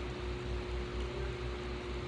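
A small machine running steadily: an even hiss and hum with one faint steady tone and a low throb pulsing about four times a second.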